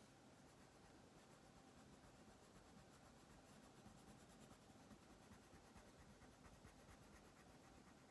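Wax crayon scratching faintly on paper in rapid short back-and-forth strokes as an area is shaded in.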